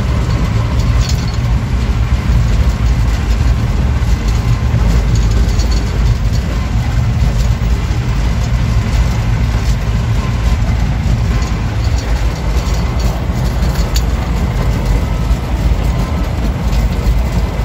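DT-75 crawler tractor driving, heard from inside its cab: the diesel engine runs steadily under load, mixed with a constant clatter of the steel tracks and scattered small knocks.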